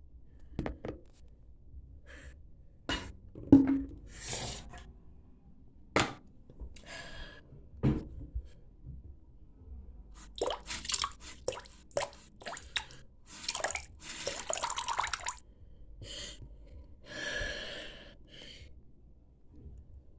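Water dripping and splashing: irregular sharp drips and plops, with a few short hissing splashes in the second half.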